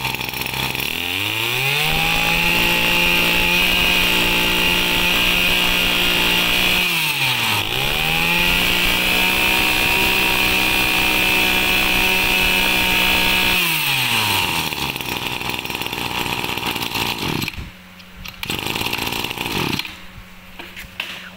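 Two-stroke engine of a used Japanese Maruyama 26cc brush cutter test-run: it idles, is revved to high throttle and held, drops back to idle for a moment about seven seconds in, then is revved and held again. It returns to idle about two-thirds of the way through and cuts off not long after.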